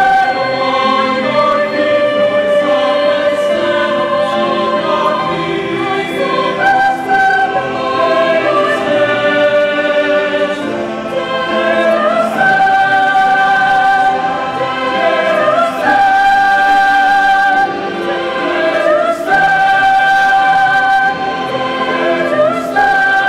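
Mixed choir of men's and women's voices singing a hymn-like song in parts, moving into long held chords that change every few seconds in the second half.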